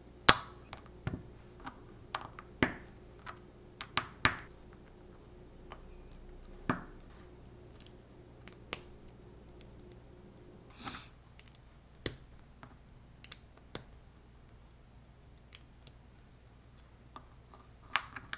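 Small plastic LEGO pieces being handled and snapped together: irregular sharp clicks and little taps, with loose parts shuffled on the mat. The loudest clicks come in the first few seconds, then they thin out.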